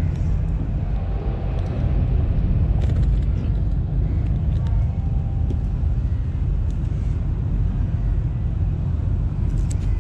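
Steady low rumble, with a few faint metallic clicks from tools handling a fish.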